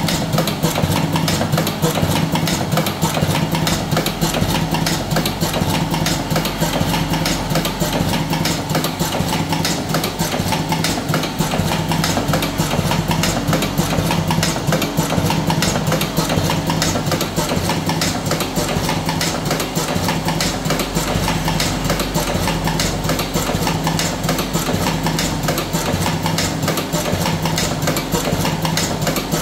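Buffalo V4S electric cigarette tube-filling machine running continuously: a steady motor hum with dense, rapid mechanical clicking.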